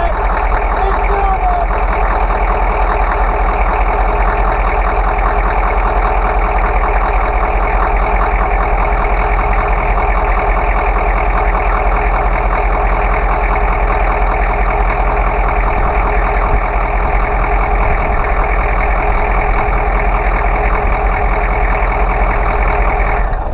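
6.2 Detroit V8 diesel idling steadily after a cold start on glow plugs, with the even clatter of a diesel at idle.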